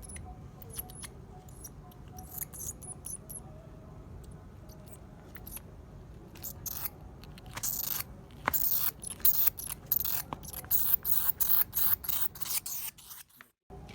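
Scratchy clicking and scraping from a live bat trying to grab hold as it is handled. The scrapes are sparse at first, then become a dense run of loud, sharp scrapes in the second half.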